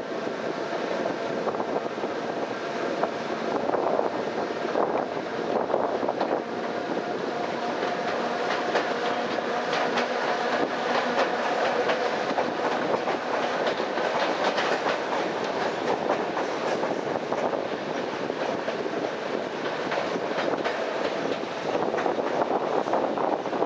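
Electric suburban train (elektrichka) running, heard from the carriage window: a steady rush of wheel and air noise with the clickety-clack of wheels over rail joints, and a dense run of clicks in the middle as it crosses the points of a station yard.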